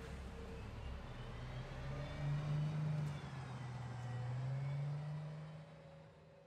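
A motor vehicle's engine running, its pitch rising and falling gently, fading out at the end.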